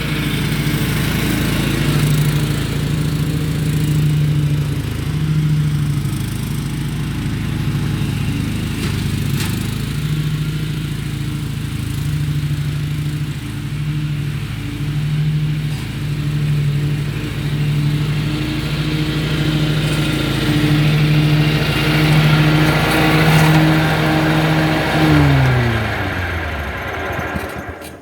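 Zero-turn lawnmower engine running, its note swelling and easing. About 25 seconds in it winds down in pitch and stops.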